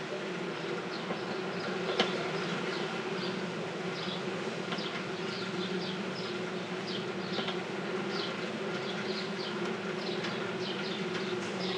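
A rented bicycle running with a steady buzzing drone from its drivetrain as it is pedalled; the bike is a noisy one. Short high chirps recur over the drone, and there is a sharp click about two seconds in.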